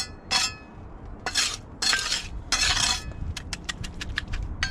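Small steel hand trowel working wet concrete: four short scraping strokes, then a quick run of light taps near the end.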